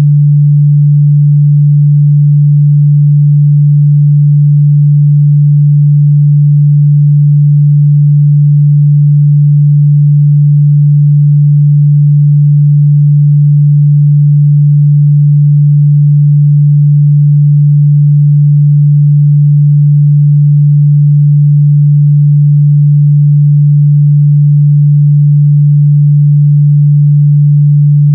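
A pure 146 Hz sine-wave test tone, a single low hum held steady and loud without change.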